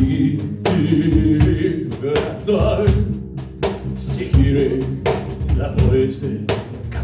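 Band music: a drum kit strikes a beat over sustained low instrumental chords, with no words sung.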